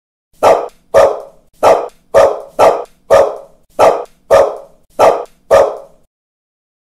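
A dog barking in a steady run of about ten sharp barks, roughly two a second, ending about six seconds in.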